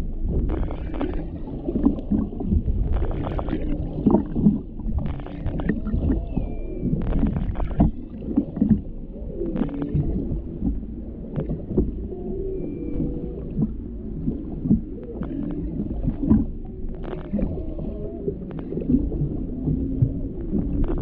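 Humpback whales calling underwater: a run of low moans and grunts that bend up and down in pitch, with an occasional higher whistle-like note, over a low rumble of water and scattered short pops.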